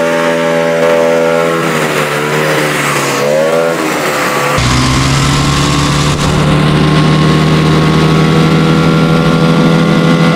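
Bajaj Pulsar motorcycle engine (a single-cylinder four-stroke) running hard as it drives a small homemade boat. Its pitch dips and recovers about three seconds in, then settles into a deeper, fuller steady drone from about halfway through.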